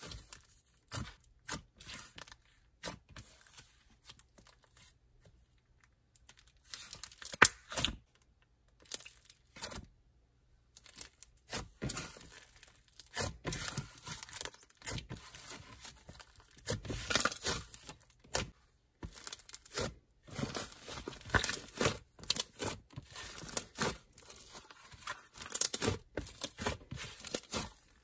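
Hands pressing, kneading and stretching a black butter slime, giving irregular sticky crackles and pops with a few short quiet pauses.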